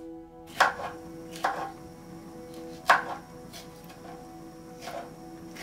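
Kitchen knife chopping green peppers on a wooden cutting board: four separate knocks, the sharpest about three seconds in.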